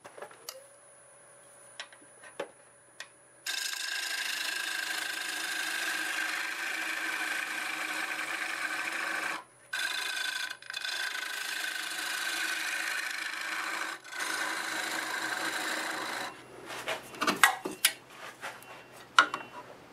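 Wood lathe motor whining up to speed and holding a steady tone, then a bowl gouge cutting inside a spinning mimosa bowl, an even scraping hiss broken by three short pauses as the walls are thinned to about a quarter inch. The cutting stops about sixteen seconds in, followed by a few light knocks.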